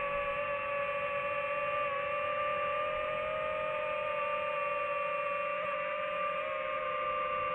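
DJI FPV drone's motors and propellers whining at a steady pitch in slow flight, the pitch dipping slightly about two seconds in and again near the end.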